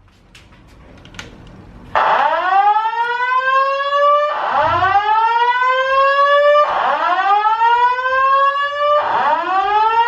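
Building fire alarm sounding a repeating rising whoop evacuation tone, one upward sweep about every two and a half seconds. It starts loudly about two seconds in, after a short quiet stretch.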